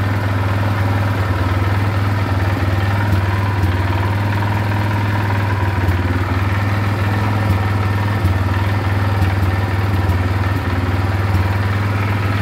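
Dinli 801 350cc ATV engine idling steadily.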